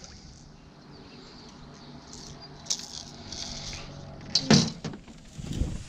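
Small clinks and knocks of fishing tackle being handled in an aluminum jon boat, with a sharper double knock about four and a half seconds in.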